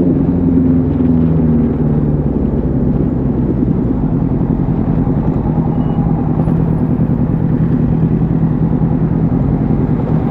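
Suzuki GSR750's inline-four engine heard from the bike while riding: the revs fall over the first second or two, then the engine holds a steady, lower note with a choppy rumble underneath.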